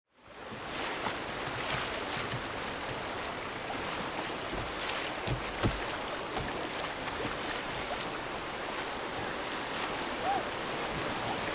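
Fast river water rushing and splashing against a kayak running a riffle, heard from a camera mounted on the boat, with scattered sharper splashes. The sound fades in at the start.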